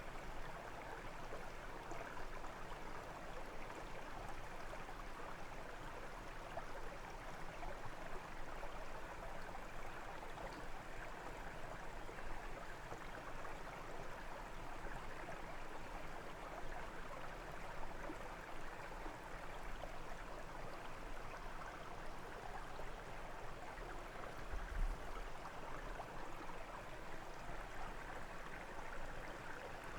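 Brook water running and gurgling steadily over stones, with a brief low thump near the end.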